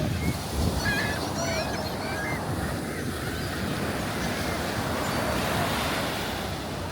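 Gulf surf washing steadily onto the beach, with wind rumbling on the microphone. A few short, high, curving chirps come about one to two and a half seconds in.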